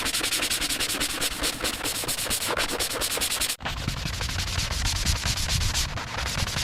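Abrasive sanding on a restoration workpiece: rapid, even back-and-forth strokes, about eight a second. About halfway through it cuts to another stretch of sanding with more low rumble under it.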